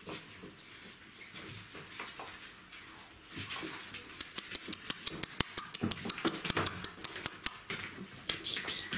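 Czechoslovakian wolfdog puppies at play, with soft scuffling and then, from about four seconds in, a fast run of sharp clicks, roughly six a second, lasting about three seconds.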